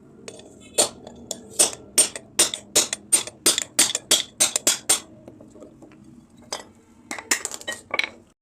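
Hammer striking metal: about a dozen sharp, ringing blows at two or three a second, then a pause and a few more blows near the end.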